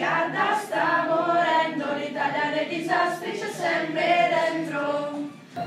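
A small group of young, mostly female voices singing a melody together in a choir-like unison.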